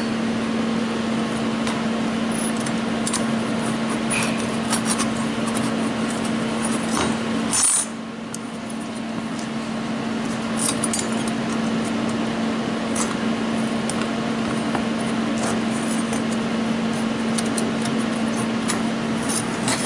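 Thin laser-cut steel sculpture parts clinking and scraping as the spider's legs are wiggled into the tight slots of the body piece for a test fit. Scattered light clicks sit over a steady hum.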